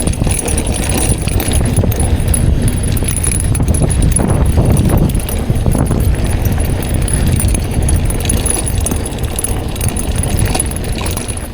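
Mountain bike rolling fast down a rough dirt trail: a steady rumble of tyres and wind on the microphone, with the chain and frame rattling in quick clicks.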